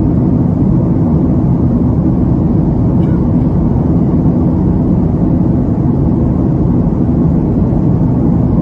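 Steady low rumble of a jet airliner in cruise flight, heard from inside the cabin.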